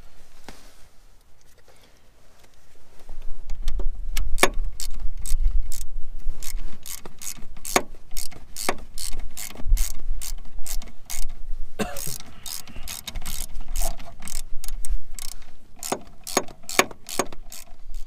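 Hand ratchet and socket clicking in quick runs of strokes as the emergency brake cable bracket bolts are driven back in, starting about three seconds in with a short pause partway through.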